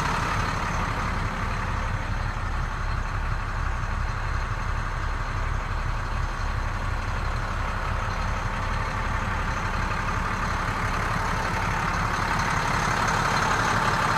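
A 2006 International 4300 truck's DT466 inline-six diesel idling steadily with an even low pulse.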